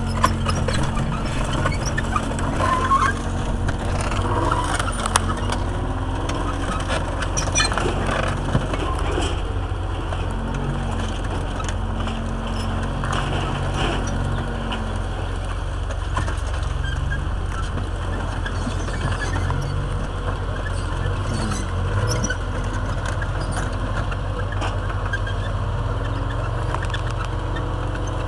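A tracked armoured personnel carrier's engine running with a steady low drone, its pitch rising and falling a little about four seconds in. During the first half it rolls over crushed car wrecks, with scattered clanks and crunches of metal and tracks. These thin out later as it drives off on the engine alone.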